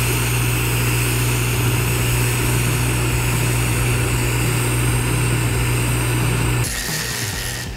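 TIG welding arc making a steady low buzz with a hiss above it while laying a fill pass on a steel pipe-to-flange joint at about 190 amps. The arc cuts off about seven seconds in.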